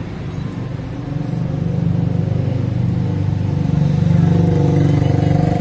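A motor vehicle's engine running close by, growing louder from about a second and a half in as it draws near, with a steady low engine note.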